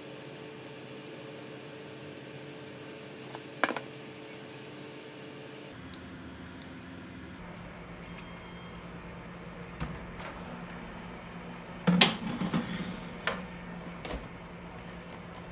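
Countertop oven-range running with a steady hum that changes about six seconds in, a few short electronic beeps around eight seconds, and a loud clunk like its door shutting about twelve seconds in, followed by a few lighter knocks.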